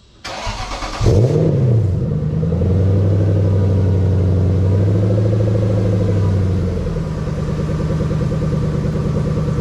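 Cold start of a 1998 Lexus GS400's supercharged 1UZ-FE V8, breathing through large 4.5-inch Dodge Ram exhaust tips. The starter cranks briefly, the engine catches about a second in with a quick rev flare, then settles into a loud, steady high cold idle that eases slightly lower near the end.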